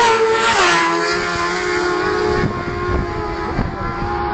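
Racing motorcycle engines on a road course at full throttle: a high engine note that drops in pitch about half a second in, then holds steady.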